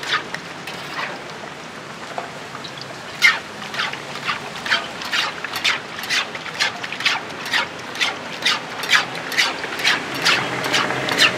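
Egg martabak frying in shallow hot oil in a wide flat pan: a steady sizzle with sharp crackling pops coming regularly, about two a second, from about three seconds in.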